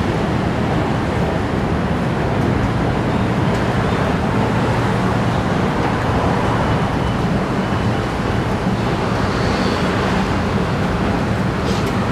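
Steady, continuous road traffic noise with no single vehicle standing out.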